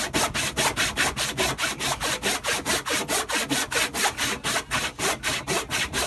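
An old, rusty hand saw cutting through a wooden board in rapid, evenly spaced back-and-forth strokes, each stroke a rasping scrape.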